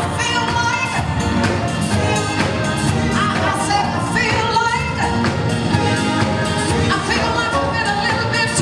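Live band of drums, electric guitar, bass and keyboards playing an upbeat disco-soul song, with a woman singing lead into a microphone.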